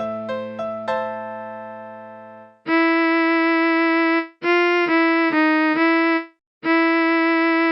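Electronic practice-track music: a few piano notes close the introduction and die away. Then the soprano melody enters alone on a sustained synthesized tone that holds an even level, playing a long note, a few short notes, a short break and another long held note.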